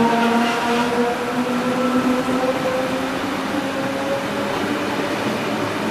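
V-set double-deck electric train pulling out, its traction motors whining in several steady tones that rise slightly in pitch as it gathers speed, over rolling noise.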